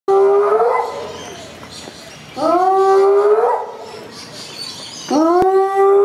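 Hyena whooping: three long calls about two and a half seconds apart, each swooping up, holding a steady pitch, then sliding up again at the end. A sharp click during the third call.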